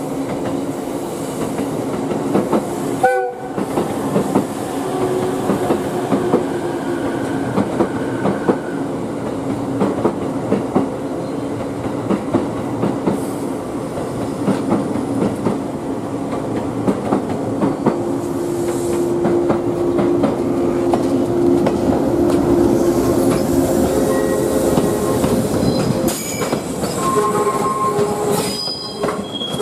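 An ex-JR 107 series two-car electric multiple unit moves off and rolls slowly past, its wheels clicking over rail joints and points under a steady hum from the train. A short horn sounds about three seconds in.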